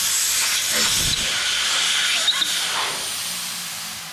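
Air hissing out of a 2002 Harley-Davidson Sportster's rear tire through its opened valve stem, deflating the tire. The loud, steady hiss starts abruptly and eases off a little near the end.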